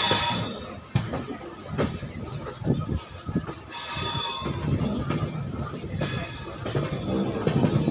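Express train's wheels running on the rails, heard from an open coach door: a steady rumble with clicks and clatter from rail joints and crossings, and a high wheel squeal at the start and again about four seconds in.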